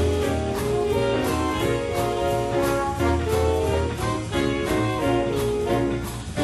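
Background music: a band or orchestra with brass playing held melodic notes over a steady bass and beat.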